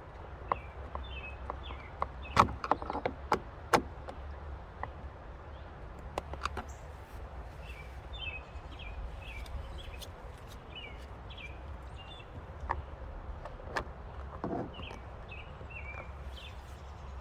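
Sharp clicks and knocks of hand tools and door hardware being handled while the door panel is refitted, bunched about two to four seconds in, with a few more later. A small bird chirps in quick runs of short notes in the background, over a steady low rumble.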